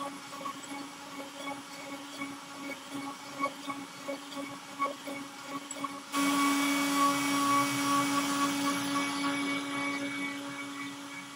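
Onefinity CNC router's spindle running with a steady high whine as its bit carves a relief into a cedar board, with light ticking from the cut. About six seconds in, the sound suddenly gets louder and fuller, then eases off slightly near the end.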